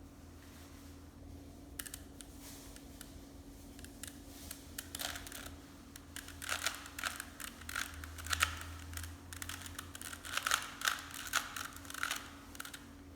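Plastic Rubik's cube being twisted by hand: bursts of quick clicking as the layers turn, with short pauses between moves.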